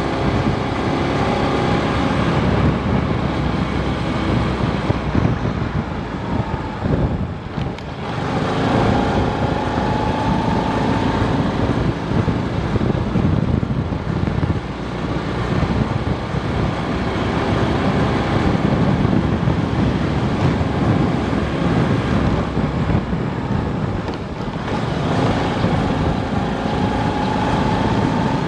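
Daelim Citi 100 motorcycle riding along, its engine running under wind noise on the microphone. Twice the sound drops briefly and then the engine note climbs again.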